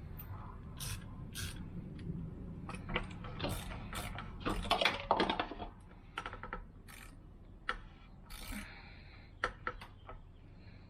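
Scattered clicks, clinks and scrapes of hard parts being handled in an engine bay, busiest about five seconds in and sparser after.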